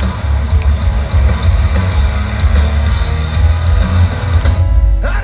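Rock band playing live through a festival PA: electric guitar and drums over a heavy low end, loud and continuous.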